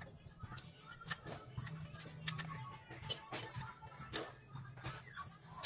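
Irregular small clicks and taps of gloved hands and tools handling parts on a Honda engine, with quiet background music underneath.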